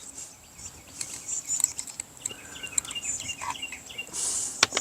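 Birds chirping against a steady high-pitched insect drone, with one sharp click shortly before the end.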